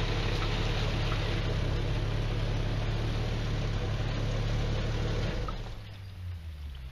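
Off-road vehicle's engine running steadily, then dropping away about five seconds in.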